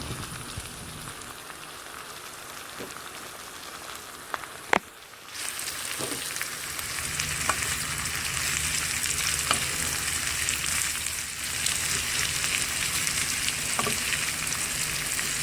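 Garlic, ginger and onion sizzling in hot oil in a pan, with a few sharp utensil clicks. About five seconds in the sizzle briefly drops, then comes back louder and fuller as the green and red bell peppers are added.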